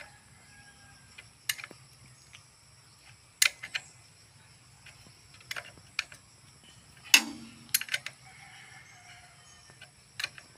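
Irregular sharp clicks and knocks of a hand tool against the metal fittings of a power sprayer pump under repair, about eight in all, the loudest about seven seconds in.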